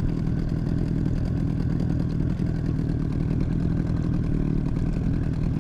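Boat's outboard motor running steadily at trolling speed.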